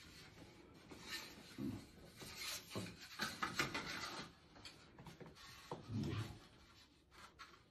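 Quiet, intermittent scraping and rubbing of hands and a tool against tile and plaster at the foot of a wall.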